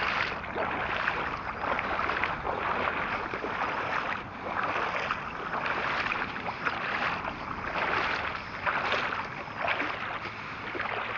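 Fast-flowing river water rushing steadily, swelling and easing every second or two.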